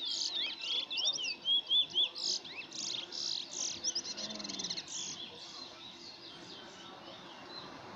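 A bullfinch singing a fast song of down-slurred chirps and buzzy trills that tapers off after about five seconds.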